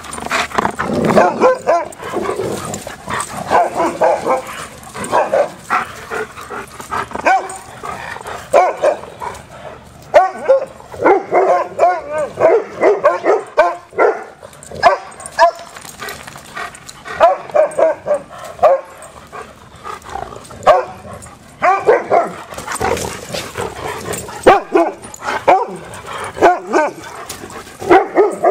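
Several dogs playing together, barking and yipping in short calls that come in quick clusters throughout.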